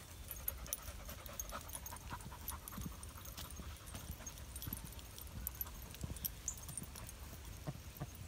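Dogs panting as they trot along a path, with soft irregular thumps of footsteps.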